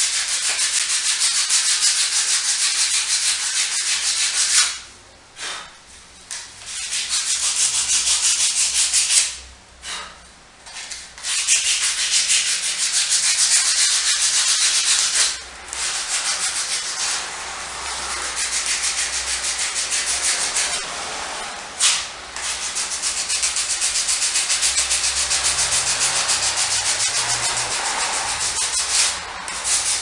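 Hand sanding with sandpaper: quick back-and-forth rubbing strokes on a small workpiece, stopping briefly several times.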